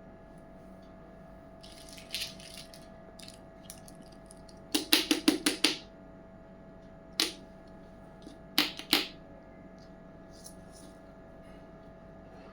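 Small miniature toy kitchen pieces being handled and set down, giving sharp clicks and taps: a quick run of about six clicks around five seconds in, then a single click and a pair of clicks, over a faint steady hum.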